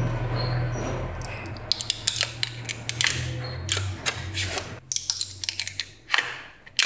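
Low hum of a boring machine dying away over the first few seconds after a cut. Then a screwdriver clicks and scratches irregularly against the leftover cast-iron liner remnants, burnt thin as foil, inside a bored cylinder of a Kia G6EA V6 aluminium block.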